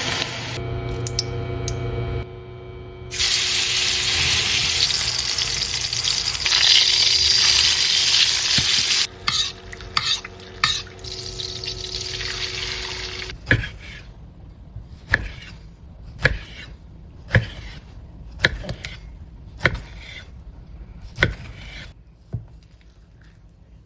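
Ribeye steak sizzling loudly in a hot pan for about the first half. After that, a series of sharp knocks about once a second over a quieter background.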